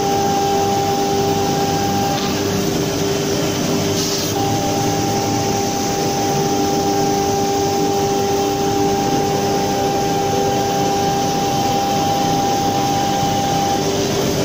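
CNC router spindle running and milling pockets into a board: a steady spindle whine over a constant cutting noise. A second, higher steady tone joins about four seconds in and stops shortly before the end.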